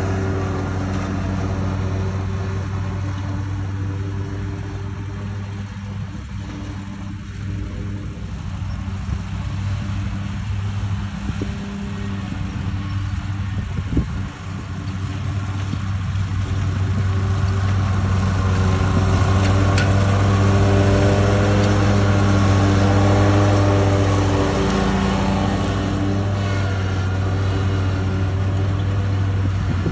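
Lawn mower engine running steadily at mowing speed, fading somewhat and then growing louder in the second half, with a change in its tone about 25 seconds in.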